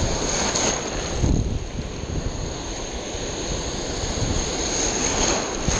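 Ocean surf breaking and washing right around the microphone at the waterline, in uneven surges, with wind rumbling on the microphone.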